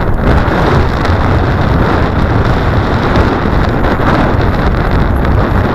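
Wind rushing over the microphone of a helmet-mounted camera on a moving bicycle: a loud, steady rumbling noise.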